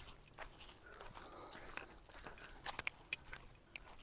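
Faint, irregular crunching clicks of footsteps on a dry, rutted dirt track, a few steps a second.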